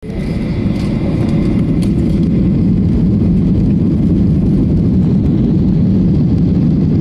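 Jet airliner on its takeoff roll, heard from inside the cabin: a loud, steady, deep rumble from the engines and the wheels on the runway.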